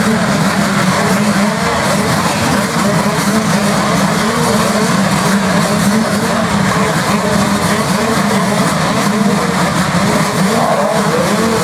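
A pack of motocross bikes running hard together: a loud, steady din of several engines, their pitches wavering up and down as the riders work the throttles.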